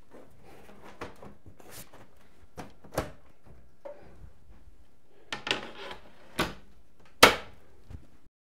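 Scattered clicks and knocks of a metal PC case side panel being fitted onto the case and the case being handled on a desk, with the sharpest knock near the end.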